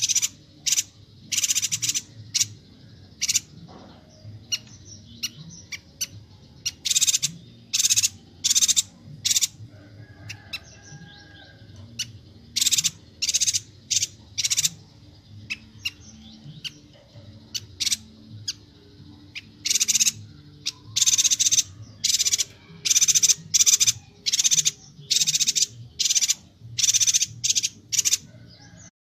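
Yuhina from Kalimantan (Perenjak Batu) calling energetically: short, sharp, high notes repeated in quick bunches with brief pauses between, over a faint low hum.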